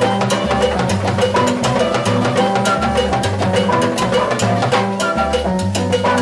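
Live salsa band playing, with timbales struck with sticks in a fast, steady rhythm over low, sustained notes that change pitch.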